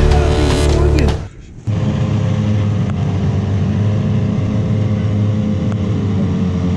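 Tohatsu outboard motors idling with a steady low drone and a constant hum, starting about a second and a half in after a short break. Before it, a separate loud sound cuts off about a second in.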